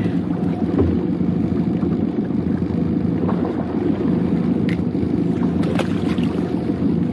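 Small boat's outboard motor running steadily with a low hum, with a few faint clicks about five and six seconds in.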